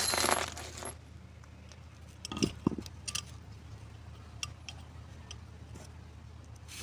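Light clicks and taps of a Bosch alternator's aluminium end housing being handled and turned over on a workbench, with a brief scraping rustle at the start and a few sharp knocks spread through, the loudest about two and a half seconds in.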